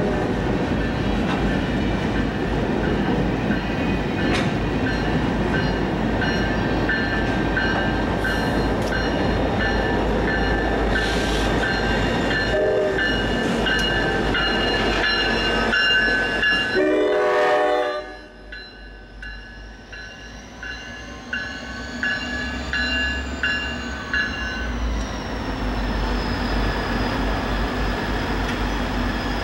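An NJ Transit work train of empty gondolas and EMD Geep diesel locomotives rumbles and clatters through a grade crossing while the crossing bell rings steadily. There is a short horn blast as the locomotives pass, and about 18 seconds in the train noise drops off sharply. The bell keeps ringing after the train has cleared and stops a few seconds before the end.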